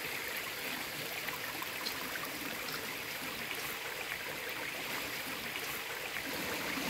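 Steady rushing of a small stream flowing.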